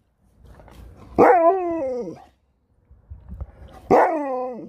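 A husky-type dog 'talking': two drawn-out, howl-like woo calls about a second long, each sliding down in pitch, with a softer grumble before the second.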